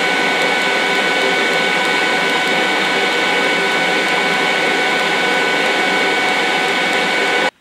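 DC TIG welding arc from a Miller Diversion inverter welder, burning steadily on steel sheet as filler rod is fed into the puddle, with polarity set correctly (torch on negative). It is a loud, even buzzing hiss with several fixed high tones, cutting in abruptly and stopping sharply near the end.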